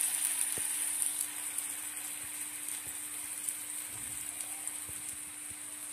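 Sausage, onion and chillies frying in oil in an iron kadai: a steady sizzle that eases a little after about a second, with a few faint ticks and a low steady hum underneath.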